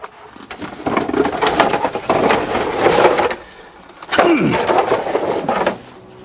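Rustling, scraping and clattering of objects being handled, in two long stretches, with a short falling squeak about four seconds in.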